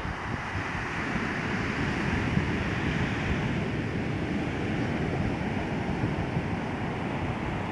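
Ocean surf breaking on the beach, a steady wash of waves with wind rumbling on the microphone.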